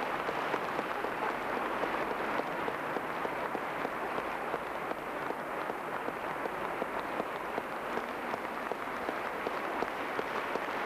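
A large audience applauding steadily: dense, even hand-clapping with no break.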